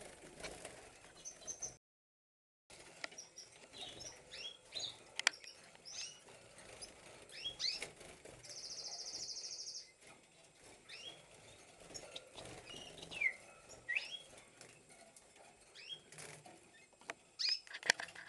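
Caged goldfinch singing: scattered high twittering notes and a buzzy trill about eight seconds in.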